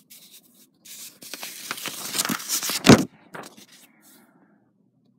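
Sheets of paper rustling and sliding as drawings are handled and shuffled, building over about two seconds and ending in a soft knock about three seconds in.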